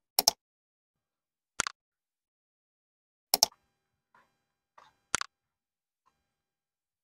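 Mouse-click sound effects of a like-and-subscribe animation: four sharp double clicks about one and a half seconds apart, with a couple of faint ticks between the last two and silence otherwise.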